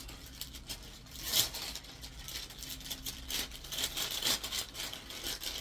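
Rustling and crinkling from garments being handled and unfolded, in irregular short bursts, with a louder crackle about a second and a half in.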